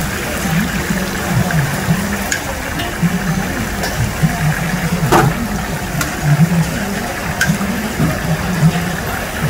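Hot oil sizzling and bubbling in large deep-frying woks as a wire skimmer basket of fried chicken pieces is lifted out and held over the oil to drain. A few light metal clinks, the clearest about five seconds in, and a low wavering hum run underneath.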